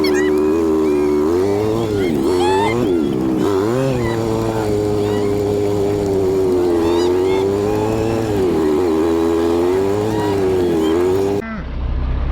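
A motor running with a strong whining tone that wavers and dips in pitch, with high chirps over it. Near the end it cuts off abruptly to a lower, steady engine hum.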